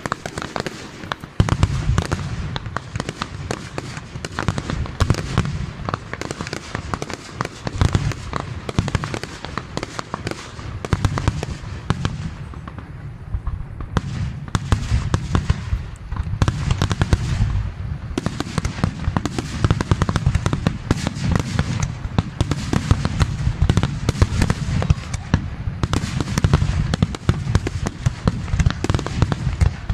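Fireworks finale: aerial shells bursting in a dense, continuous barrage of rapid bangs and crackles. The barrage starts about a second and a half in and keeps going without a break.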